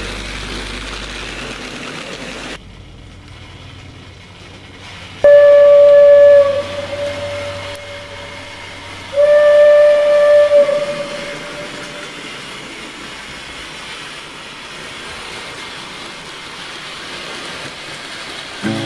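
Steam locomotive whistle blowing two single-note blasts of about a second each, a few seconds apart, as a passenger train departs a station, over a steady background hiss.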